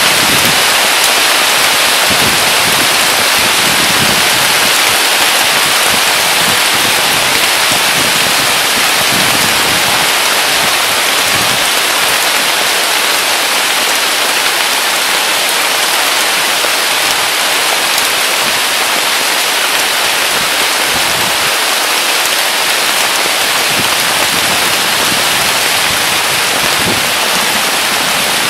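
Heavy rain pouring down on a weeping willow's leaves and the ground: a loud, steady, even hiss with no letup.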